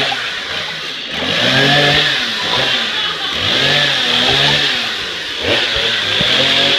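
Gasoline chainsaw running, revving up and falling back about three times as its chain is worked into the butt of a Christmas tree trunk.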